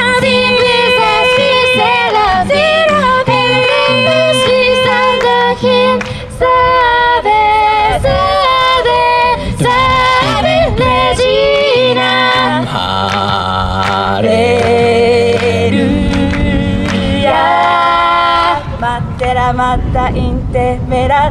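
Mixed a cappella group singing in close harmony through microphones and a PA, several voices holding and moving chords over a sung bass line. Sharp rhythmic clicks come in more often near the end.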